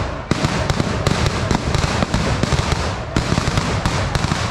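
A string of firecrackers going off in a dense, irregular run of sharp cracks, with a brief lull about three seconds in.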